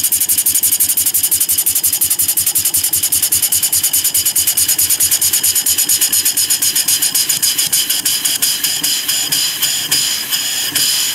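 Half-horsepower A.J. Weed single-cylinder marine steam engine running on compressed air at about 20 PSI: a fast, even beat of hissing exhaust puffs with mechanical clatter. The beat slows toward the end.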